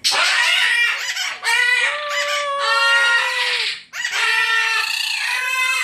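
Pet parrot calling loudly: three long, drawn-out calls in a row, the middle one a held note that slowly falls in pitch.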